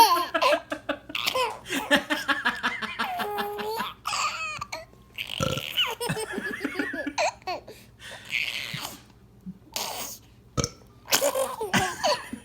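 A man burping several times, with a baby laughing in short fits between the burps.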